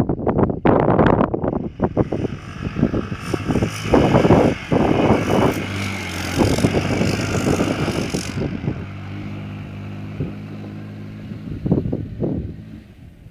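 Quad bike engine running close by, then pulling away down the track and fading. Gusts of wind buffet the microphone early on.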